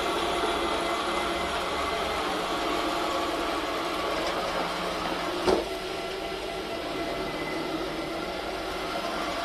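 iClebo Arte robot vacuum cleaner running: a steady motor and brush hum carrying several constant whining tones, with a single sharp knock about halfway through.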